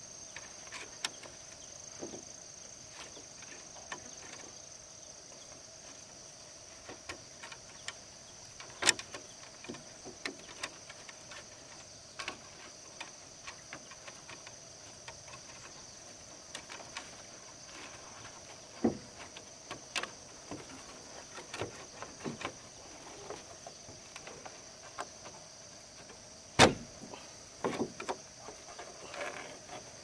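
Scattered knocks and taps from hand work on bamboo, over a steady high drone of insects. The sharpest knocks come about nine seconds in and near the end.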